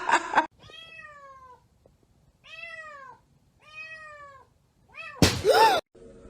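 A cat meowing repeatedly: four drawn-out meows that each fall in pitch, then a louder, rougher meow near the end.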